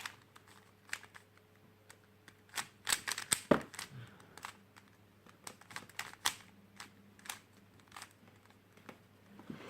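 Plastic 3x3 Rubik's cube being turned by hand: irregular sharp clicks as its layers snap round, with a short run of quicker clicks about three seconds in.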